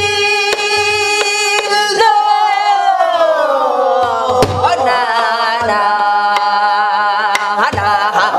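Korean gueum singing: a woman's voice holds long wordless vocable tones, slides slowly downward about two seconds in, and later wavers with vibrato. It is accompanied by stick strokes on a buk, a Korean barrel drum.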